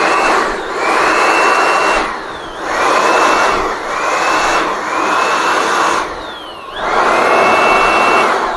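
Electric blower switched on and off in about five short bursts. Each burst starts with a rising motor whine that levels off into a steady rush of air, then winds down in the short gaps between.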